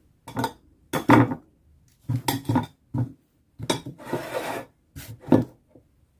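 Kitchen clatter: a metal baking sheet and utensils being handled on the counter, a string of sharp clanks and knocks with a longer scrape about four seconds in.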